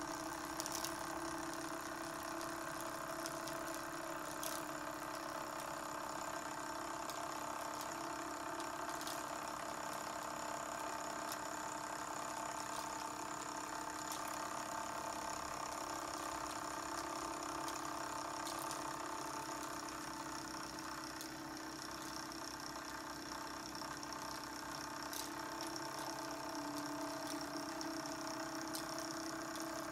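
Wilesco D2 miniature oscillating-cylinder steam engine running steadily under steam, its cylinder and flywheel giving a fast, even mechanical ticking with a steady hum.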